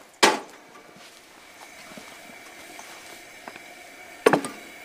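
Steady hiss of a camping gas stove's burner under a frying pan, broken by two sharp knocks of cookware, one just after the start and one about four seconds in.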